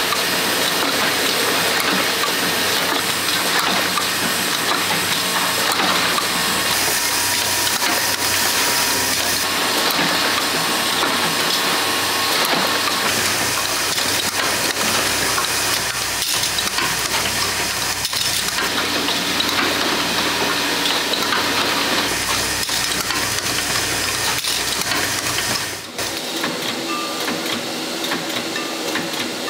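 Oil filter production machinery running: a steady, dense mechanical din with hissing. Near the end it changes abruptly to a slightly quieter machine sound.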